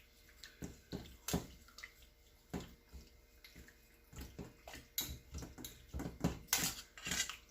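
Raw chicken thighs being stirred in salted water, with irregular sloshes and splashes that come faster near the end.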